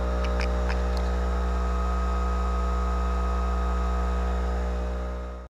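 Steady, loud electrical hum of a Boeing 737-800 under power, heard in its aft cargo hold: a deep drone with several steady tones above it and a thin high whine. There are a few light clicks about half a second in, and the sound cuts off suddenly near the end.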